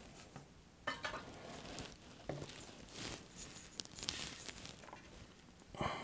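Faint scattered clicks, taps and light handling noises of small soldering tools being picked up and worked against a game console's circuit board at a bench, with a slightly louder short knock just before the end.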